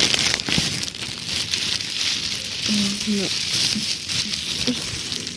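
Crackling rustle of things being handled and rummaged through, a steady hiss dotted with small clicks, with a short voiced murmur about three seconds in.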